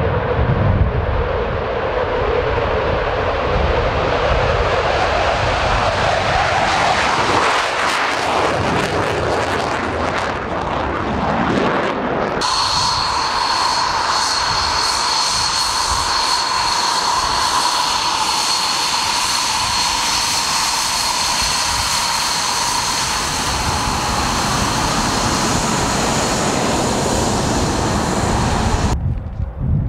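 Dassault Rafale jet engines running hard on a take-off roll, a loud rush with a pitch that climbs as the jet speeds past. About twelve seconds in, the sound switches to a taxiing two-seat Dassault Mirage 2000, whose single jet engine gives a steady high-pitched whine over a low rush.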